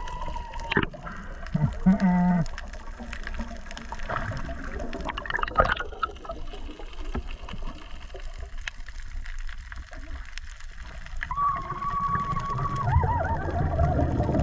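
Underwater sound picked up by a diver's action camera: muffled water noise with scattered knocks, a steady high tone held for about a second and a half about two-thirds through, and a rising rush of bubbles near the end as the diver exhales.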